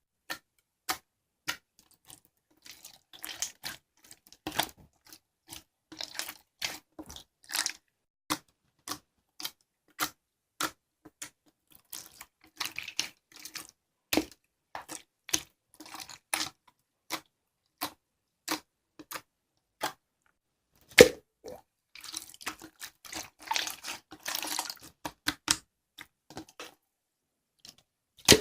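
A long run of sharp, irregular clicks and taps, about one or two a second, with short stretches of rustling between them and one louder knock about 21 seconds in.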